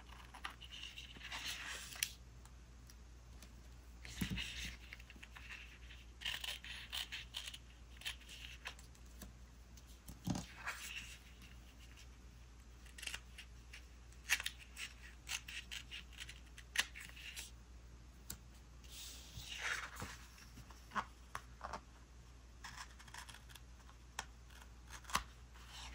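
Small scissors snipping off sticker edges that overhang a paper planner page, in short scattered snips with paper rustling between them.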